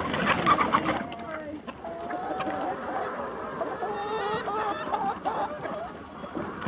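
A flock of hens clucking and calling in many short, overlapping calls. A brief loud burst of noise in the first second.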